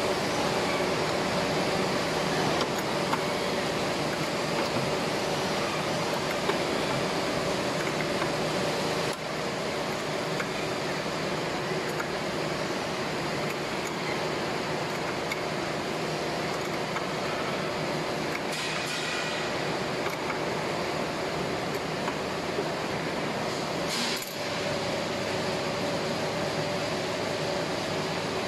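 Steady hum of running machinery carrying a faint steady tone, with a couple of brief clinks in the latter half.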